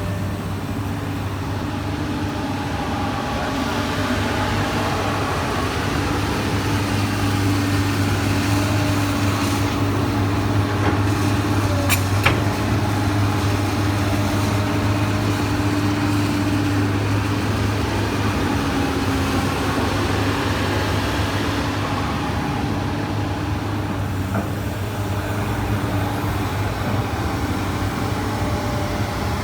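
Komatsu PC200 excavator's diesel engine running steadily, with a brief sharp click about twelve seconds in.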